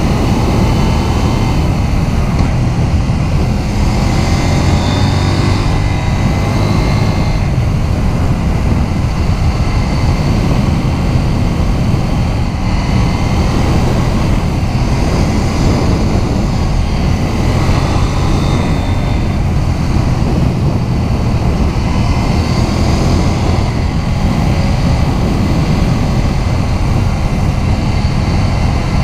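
KTM 790 Duke's 799 cc parallel-twin engine pulling steadily in fourth gear at about 85–95 km/h, its pitch rising and falling gently with the throttle, with wind rushing over the microphone.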